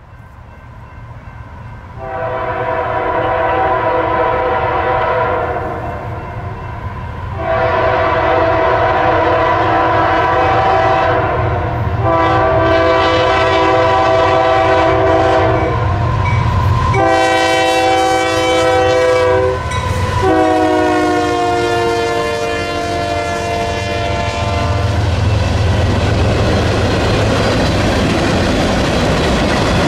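Union Pacific freight train passing: a Nathan K3HA three-chime locomotive horn sounds a series of long blasts over the locomotives' low rumble, its chord dropping in pitch as the locomotive goes by about 20 seconds in. Then comes the steady rumble and rail clatter of covered hopper cars rolling past.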